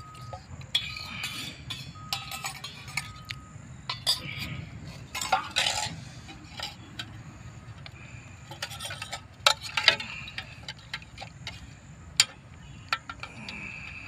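Metal spoon clinking and scraping against a bowl while noodles are eaten: irregular light clinks, the sharpest of them about ten seconds in.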